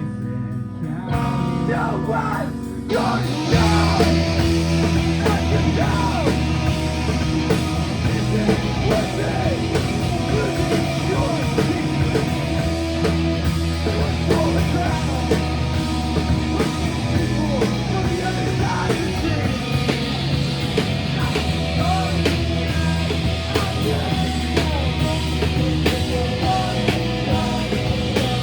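Live rock band playing, with electric guitar; after a thinner opening passage the full band comes in loud about three seconds in and keeps a steady, driving level.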